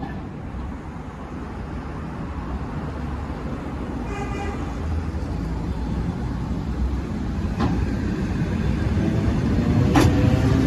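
ED4M electric multiple unit pulling away from a platform: a rumble that grows steadily louder, with a short tone about four seconds in, two sharp clacks from the wheels, and a whine from the traction motors rising in pitch near the end as the train speeds up.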